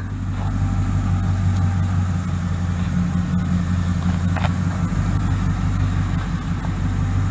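Engine of a classic red Ford pickup idling with a steady low rumble.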